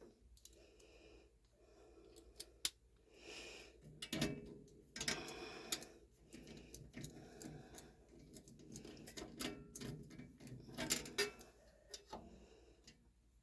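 Irregular metal clicks and scraping from a hand tool working the screw that holds a furnace flame sensor, with handling rustle in between.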